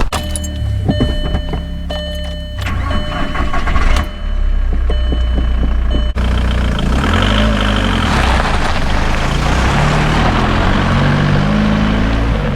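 Car driving: the engine runs under road noise, its pitch rising and falling as it speeds up and eases off. A few steady tones and knocks sound in the first few seconds, before a sudden change about six seconds in.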